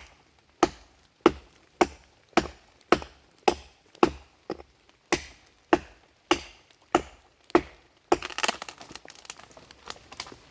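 Axe chopping wood in a steady rhythm of sharp strikes, just under two a second, about fourteen in all. After the last strike comes a burst of rustling and crackling.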